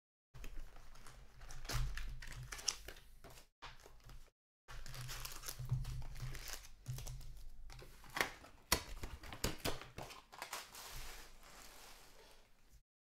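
A cardboard hobby box of 2017-18 Upper Deck Series 1 hockey cards being opened, and its foil card packs lifted out and stacked by hand. The sound is irregular crinkling and rustling with some tearing and sharp taps, cutting out to silence a couple of times.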